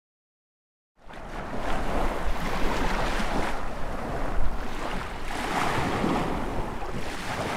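Small waves of the Chesapeake Bay washing onto a sandy beach, swelling and easing every second or two, with wind rumbling on the microphone. The sound starts abruptly about a second in, after silence.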